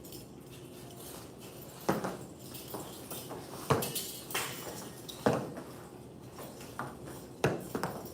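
Sharp clacks and knocks from a double butterfly knife form being practised, four louder ones spaced a second or two apart with a few lighter clicks between.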